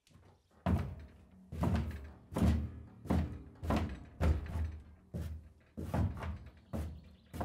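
Horse pawing with a front hoof on a horse trailer's floor and ramp: a regular string of heavy thumps, roughly one every two-thirds of a second.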